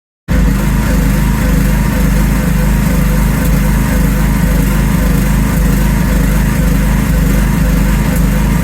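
Small engine running steadily at one constant speed, cutting in suddenly just after the start.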